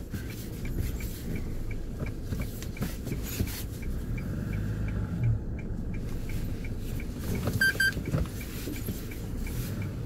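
A car engine running at low revs, heard from inside the car as a steady low rumble. A faint regular ticking comes about twice a second, and a short electronic double beep sounds near the end.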